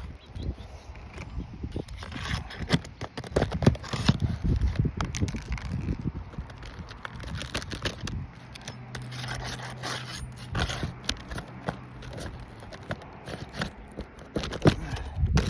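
Roof snake scraping and prying under old, brittle laminated asphalt shingles, with irregular scrapes and small cracks as the shingle material breaks apart. A faint steady low hum runs for a few seconds midway.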